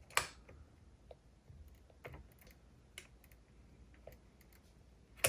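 Scattered light clicks and taps of small mechanism parts and tools being handled while a cassette deck's tape transport is taken apart, with a sharper click just after the start and another at the very end.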